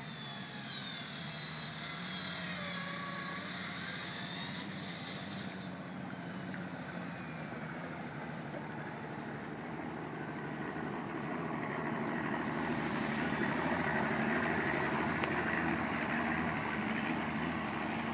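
225 hp Mercury OptiMax outboard, a two-stroke direct-injection V6, running at low speed on a Mako 221 center console. About two-thirds of the way through it gets louder as the throttle comes up and the prop churns the water.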